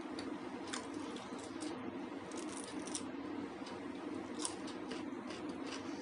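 Close-miked eating sounds of a raw cucumber slice being bitten and chewed: irregular crisp crunches and wet mouth clicks, with a cluster of crunches about two to three seconds in. A steady low hum sits under them.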